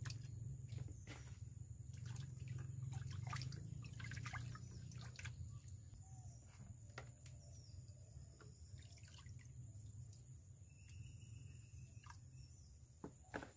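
Water sloshing, splashing and dripping in an earthenware pot as raw chicken pieces are washed by hand and lifted out, with scattered small knocks, over a low steady rumble.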